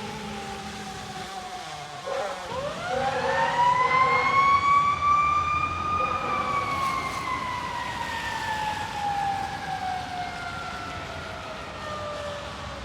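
Federal Q mechanical siren on a fire engine: a falling tone at first, then about two seconds in it winds up again over about four seconds to a high wail and slowly coasts down through the rest.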